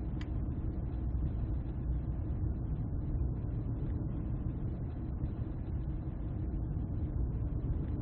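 Steady low rumble of a moving coach bus, heard from inside the passenger cabin, with a single short click just after the start.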